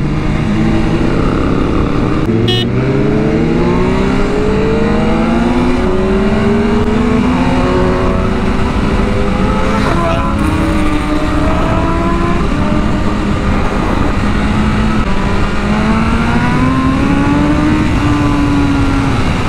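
Sport-bike engine pulling hard as the motorcycle accelerates up through the gears, its pitch climbing in long sweeps and dipping at the changes, over steady wind rush.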